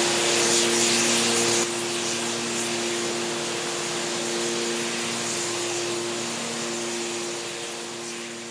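Steady machine-like hiss over a low hum of several steady tones. The hiss drops a step about a second and a half in, and the sound fades out near the end.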